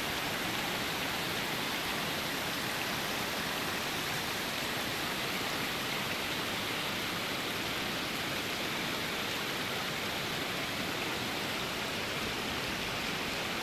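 Mountain stream rushing over rocks and stones, a steady, unbroken sound of running water.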